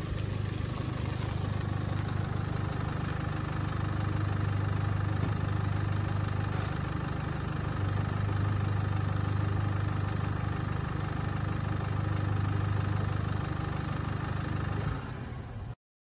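Nissan SUV's engine idling steadily with a low, even hum that cuts off abruptly near the end.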